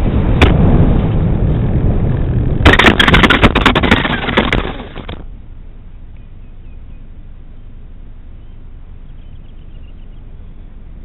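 Wind and motion rush, with a sharp knock just after the start. Then about two and a half seconds of loud clattering and rattling impacts as the small camera-carrying vehicle skids and tumbles over gravel, cutting off suddenly about five seconds in. After that only a faint steady hiss remains.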